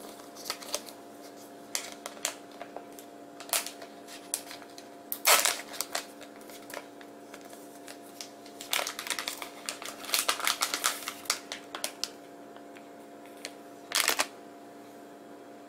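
A plastic phone case and its clear plastic sleeve being handled: irregular clicks, taps and crinkling, with the loudest bursts about five seconds in, through the stretch from about nine to eleven seconds in, and again near the end. A faint steady hum runs underneath.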